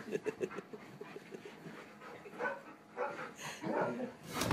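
A dog making quick, repeated short vocal sounds while playing, with a few more short sounds past the halfway point and again near the end.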